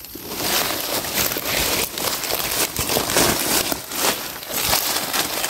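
Dry leaf litter crackling and rustling as hands and a knife dig through it at the base of a mushroom, a dense, continuous run of crunchy crackles.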